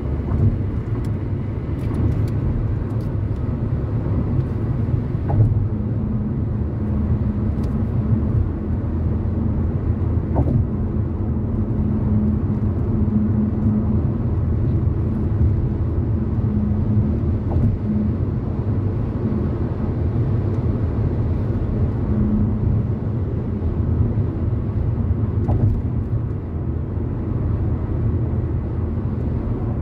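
A car driving at highway speed: a steady low rumble of engine and tyre noise on the road.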